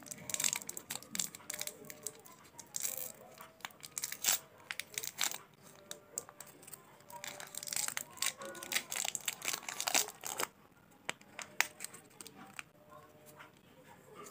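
Foil candy wrappers crinkling and tearing as they are unwrapped by hand: dense crackling for about the first ten seconds, then sparser crinkles.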